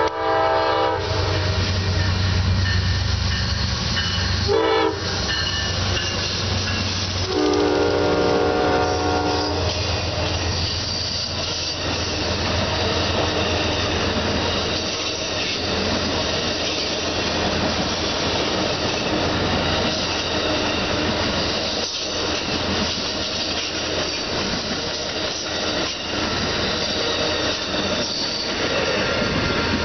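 Amtrak passenger train passing close by. The Genesis diesel locomotive sounds its horn: a short blast at the start, a very brief one about five seconds in, and a longer one near eight seconds, over its engine drone. Then the bilevel Superliner cars roll past with a steady rumble of wheels on rail and faint high squeals.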